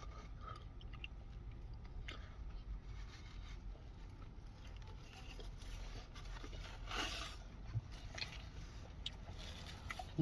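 Faint chewing and mouth sounds of a person eating a saucy fried chicken burger, with scattered small clicks and one brief louder noise about seven seconds in.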